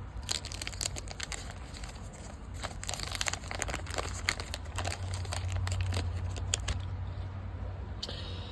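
Waxed-paper wrapper of a 1989 Fleer baseball card wax pack being torn open and crinkled, in irregular crackles that are thickest about three seconds in, over a low steady hum.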